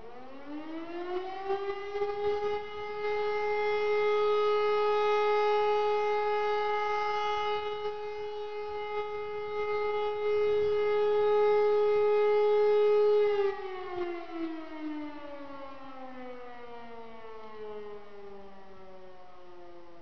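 E57 electric motor sirens sounding one tone of the German 'Feueralarm' fire-brigade signal. The tone winds up over about two seconds and holds steady for about eleven seconds, then drops as the rotor spins down. A second E57 can be heard winding down alongside it.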